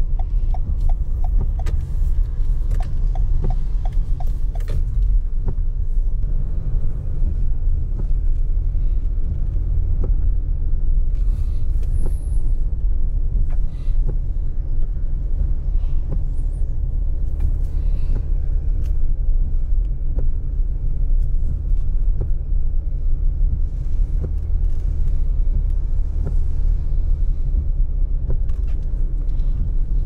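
Rain drumming on a car's roof and glass, heard from inside the cabin: a deep, steady rumble with many sharp drop hits scattered through it.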